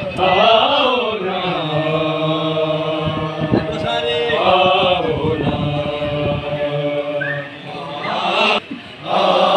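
Men's voices chanting a noha, a Shia mourning lament, in long held, sliding lines, with a brief break near the end.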